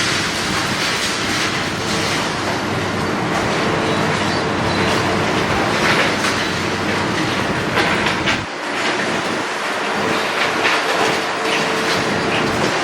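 Demolition machinery at work: a diesel engine running under load with continual clattering and knocking of broken debris. The deep engine sound falls away about eight and a half seconds in while the clattering goes on.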